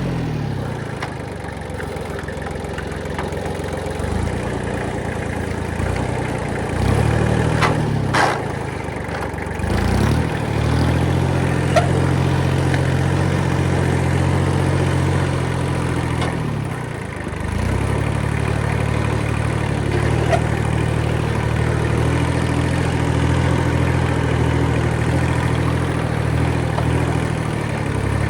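A Kubota diesel engine is running steadily. Its pitch sags and climbs back about four times as it takes on load and recovers. There are a couple of sharp snaps about eight seconds in.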